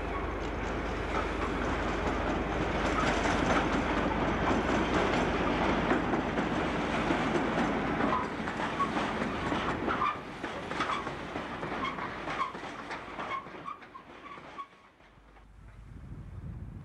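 Class 56 diesel locomotive and its freight train passing close by: engine and running noise that swells to its loudest in the first half, then a run of sharp wheel clicks over the rail joints as the train goes by, fading away near the end.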